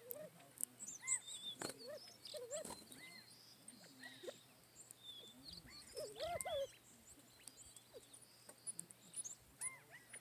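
Quail giving repeated soft, arched contact calls while small birds chirp at a higher pitch, with scattered light clicks on the gravel.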